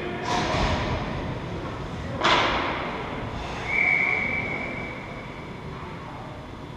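Ice hockey play echoing in an arena: a brief scrape at the start, then a sharp hard crack about two seconds in that rings off the rink. About a second later a referee's whistle sounds as one steady blast lasting about two seconds.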